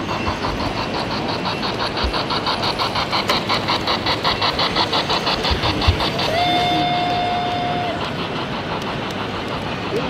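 Large-scale model steam locomotive and its freight wagons running on track, with a fast, even beat of about six a second, then a steady whistle held for about a second and a half as the engine passes close.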